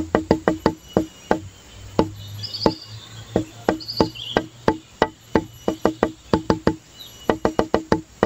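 Background music built on rapid, evenly spaced wood-block-like clicks, about five a second, pausing briefly twice.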